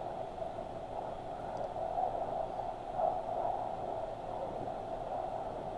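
Steady noise inside the cabin of a moving car, an even rush and hum with no distinct knocks or events.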